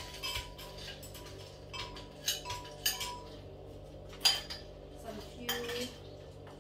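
Metal spoon clinking and knocking against a bowl as ice cubes are spooned into a blender jug: scattered clinks, the loudest about four seconds in.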